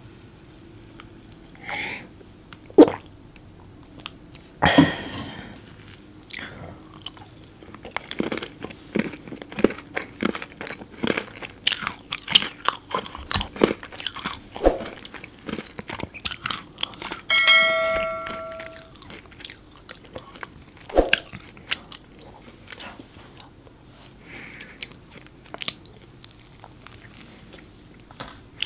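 Close-miked eating of chocolate cake studded with M&M's: irregular crunching and wet chewing as the candy shells break, with a brief humming tone about two-thirds of the way through.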